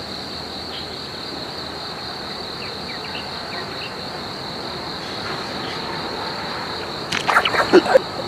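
Insects chirring steadily in one unbroken high-pitched drone, with a few faint short chirps. About seven seconds in comes a brief cluster of louder sharp clatters, the loudest sound here.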